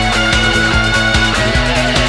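Instrumental break of a band-backed pop-rock song. A lead line holds one long high note, then slides lower and wavers in the second half, over steady bass and chords.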